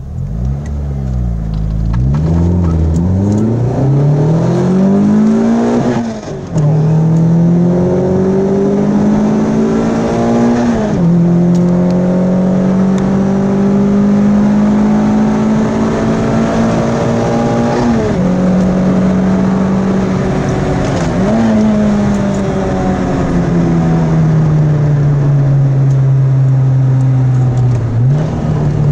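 Renault Clio RS 2.0 16-valve four-cylinder engine on a Supersprint exhaust (sports metal cat, centre and rear silencers), heard from inside the cabin while driven hard. The engine note climbs and drops back sharply several times, holds high at around 6,000 rpm, and then falls slowly near the end.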